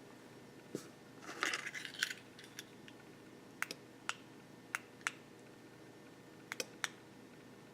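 Small switch being handled and clicked: a brief rustle about a second in, then several short, sharp clicks spread over a few seconds, some in quick pairs.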